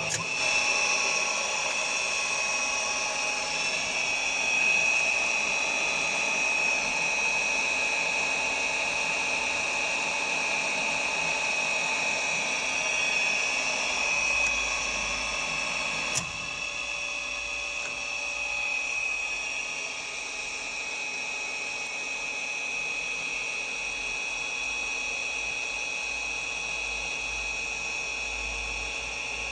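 Turret drill press running with a steady whine made up of several steady tones. It starts up at once. About sixteen seconds in, a sharp click is followed by a slightly quieter, duller running sound.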